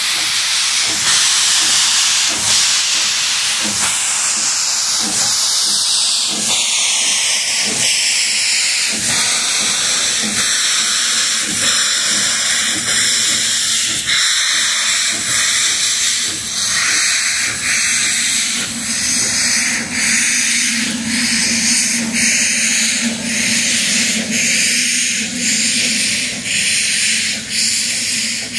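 US Sugar 148, a 2-8-0 steam locomotive, working with a loud, steady hiss of escaping steam and a regular exhaust beat, its sound shifting as it moves past.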